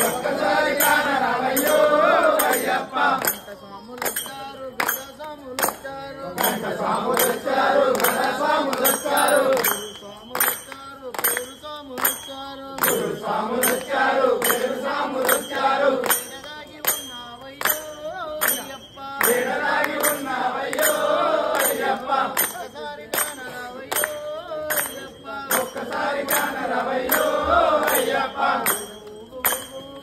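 Voices singing an Ayyappa devotional bhajan, accompanied by a steady beat of sharp percussion strikes.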